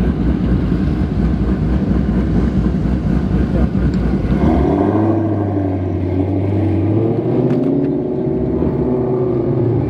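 Ford Shelby GT350's modified 5.2-litre V8 running: a heavy, rough low rumble, then about halfway through the note changes to a steadier drone with a wavering pitch as the engine is revved.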